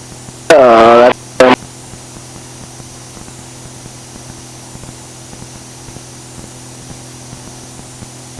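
Steady hum and hiss of the cockpit intercom audio in a Velocity aircraft, with the engine's drone underneath. A short, loud, clipped voice cuts in about half a second in.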